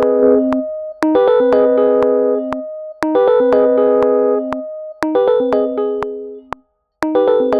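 Software synthesizer with an electric-piano-like keyboard tone, played in a DAW, repeating a short cluster of notes about every two seconds. Each cluster fades out, and sharp clicks mark the beats.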